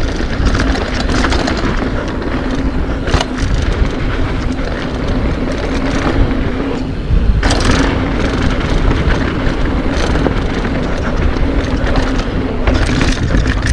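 Wind rush and tyre roar on a mountain bike descending a bike-park trail at speed, with a steady low hum through most of it. Two sharp knocks, about three seconds in and again about seven and a half seconds in, are the bike landing.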